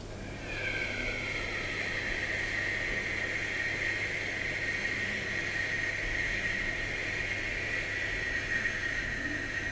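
A long, steady breathy 'shu' hiss blown out through rounded lips: the Xu healing sound of qigong, held as one sustained exhalation. It begins about half a second in, dipping slightly in pitch at its onset before settling.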